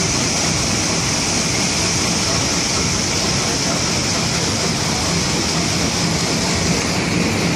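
Steady machinery noise from stone-cutting equipment running: a continuous hiss with a low hum underneath.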